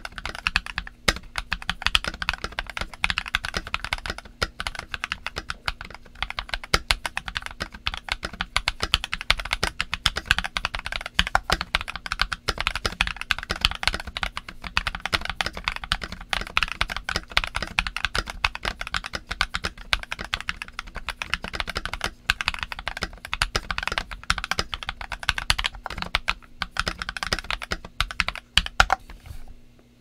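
Continuous fast typing on a Feker/Boyi IK87 tenkeyless mechanical keyboard fitted with KL Moon V2 linear switches on switch pads and Programmer Cherry-profile dye-sub PBT keycaps: a dense, irregular stream of keystrokes that stops just before the end.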